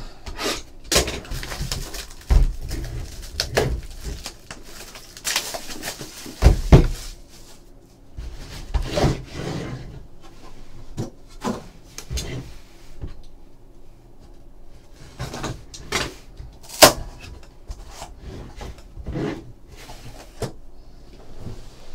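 Handling of a sealed trading-card hobby box: its plastic wrap is slit with a utility knife and pulled off, then the box is opened and its felt-lined case lifted out. There are scattered knocks and clicks of the box against the table, short bursts of rustling, and one sharp click about 17 seconds in.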